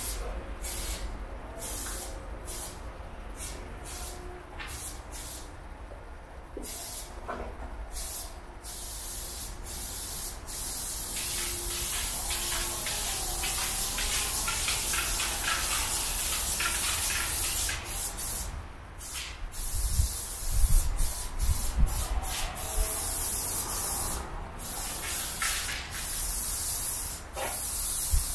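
Aerosol spray paint can spraying onto a concrete wall. It hisses in short bursts at first, then in one long unbroken spray, then in bursts again, as lime-green paint is filled in. Low rumbling thumps come about two-thirds of the way through.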